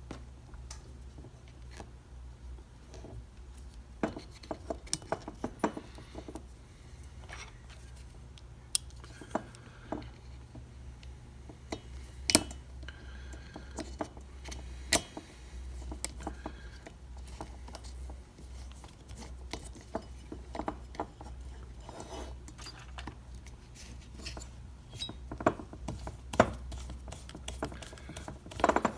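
Scattered clicks, taps and clinks of hand tools and small metal chainsaw parts being handled during reassembly, over a steady low hum.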